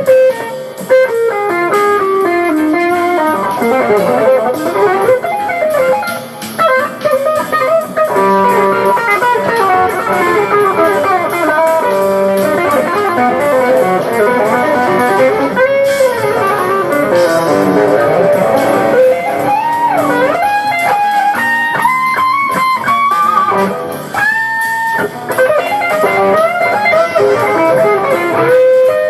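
Jazz fusion band playing, with an electric guitar soloing in fast runs, bends and held notes over the accompaniment.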